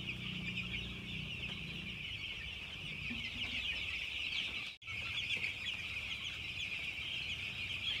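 A large flock of ten-day-old broiler chicks peeping all at once, a dense, continuous chorus of high cheeps. The sound drops out for an instant a little under five seconds in.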